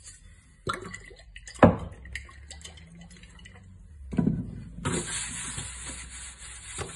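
Seed oil poured into a dark metal pizza tray, with two light knocks against the pan in the first two seconds. From about five seconds in, hands rub the oil over the bottom of the tray, making a steady scraping hiss.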